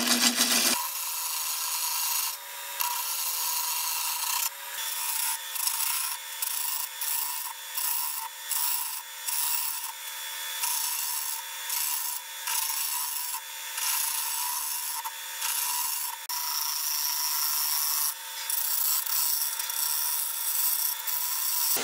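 Bowl gouge cutting into a spalted beech bowl blank spinning fast on a wood lathe: a steady hissing shave of wood as a tenon is turned on the end. From about five seconds in it breaks into repeated passes, with short gaps roughly once a second.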